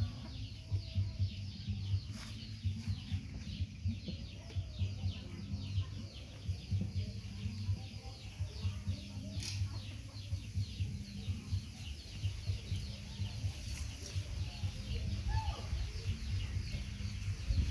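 Rural outdoor background: chickens clucking now and then over a steady high, fast-pulsing chirr and a low, uneven rumble.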